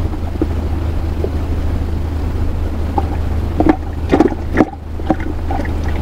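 Steady low rumble, with a few soft knocks and rustles about three and a half to five seconds in as fingers thread bait onto a small fishing hook.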